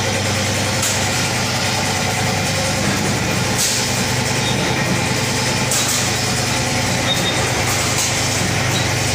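Powder coating plant machinery running with a steady low drone, with a few brief hissing surges over it.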